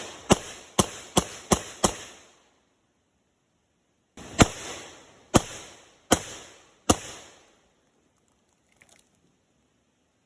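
Semi-automatic 12-gauge shotgun firing: five rapid shots in under two seconds, then after a pause four more about a second apart, each with a short echoing tail. A faint brief clatter near the end.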